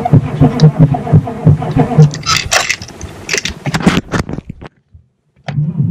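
Starter cranking a cold Chevy 6.5L diesel V8 that will not fire, with slow, even compression beats about three a second; it is cold-soaked without a block heater or fuel additive. About two seconds in, rustling and knocking from handling covers the cranking, the sound then cuts out briefly, and slow cranking resumes just before the end.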